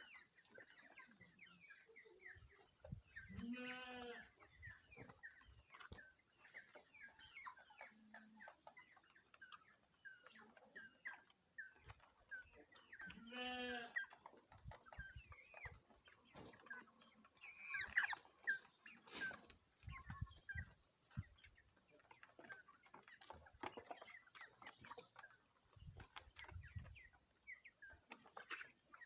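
A flock of poultry calling: many short chirps and clucks throughout, with two louder drawn-out calls about four and thirteen seconds in.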